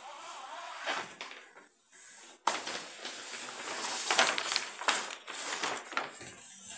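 Paper and plastic laminating film rustling and crackling as sheets are handled, starting suddenly about two and a half seconds in after a short lull and carrying on with many small crackles.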